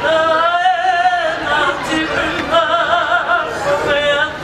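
Women's karanga, the high ceremonial Māori call of welcome at a pōwhiri: long held notes with a wavering pitch, sung in several phrases.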